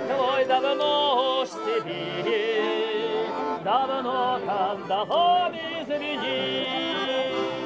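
A voice singing a melody with vibrato over held instrumental accompaniment.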